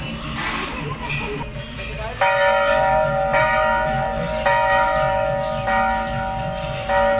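Temple bell struck at a steady pace, five strokes starting about two seconds in, each one ringing on into the next.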